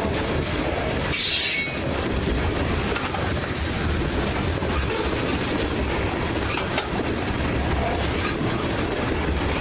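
A freight train of tank cars rolling past close by: a steady rumble and clatter of wheels on the rails. A brief high-pitched wheel squeal comes about a second in.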